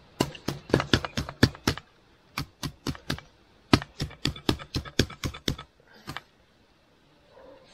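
A knife knocking on a board as lemongrass is prepared for the pot: quick, dry strikes about five a second, in three runs with short pauses between them and one last pair of knocks near the end.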